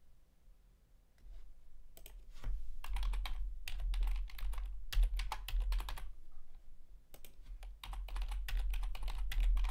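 Typing on a computer keyboard: quick runs of key clicks starting about two seconds in, with a short pause about two-thirds of the way through, as an IP address and then a subnet mask are keyed in.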